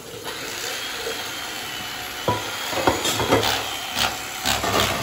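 Corded electric carving knife buzzing as its blades saw through a roast turkey, with a run of sharp knocks and scrapes in the second half.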